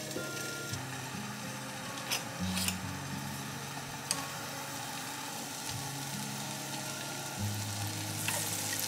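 Food sizzling steadily in hot oil in a frying pan, with a few light clicks about two and four seconds in.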